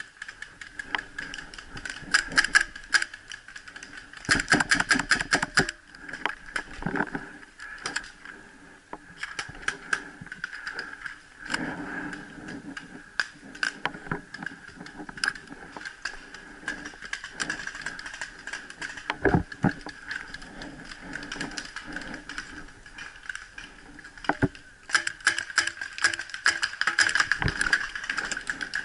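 Paintball markers firing: sharp pops scattered throughout, with a rapid string of shots about four seconds in and another busy volley near the end.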